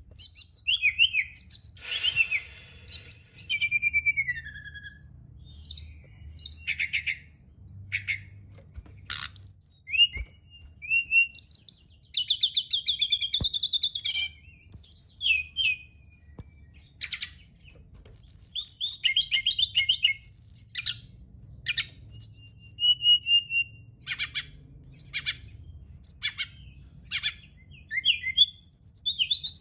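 SRDC (sikatan rimba dada coklat, a brown-chested jungle flycatcher) singing a long series of short, varied, high-pitched phrases with quick trills and sweeping notes, broken by brief pauses. A faint low hum runs underneath.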